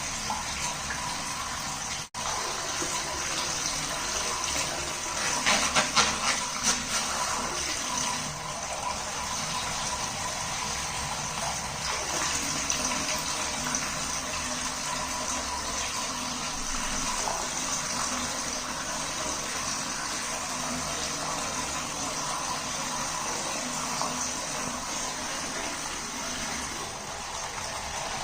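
Water running steadily from a tap into a water balloon being filled, with a short flurry of louder splashing sounds about six seconds in.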